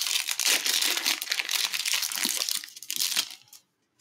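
Foil wrapper of a trading-card pack crinkling as hands open and handle it: a dense, uneven crackle that stops about three and a half seconds in.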